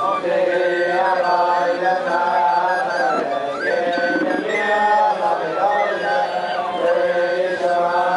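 A group of men singing a chant-like melody together, many voices at once.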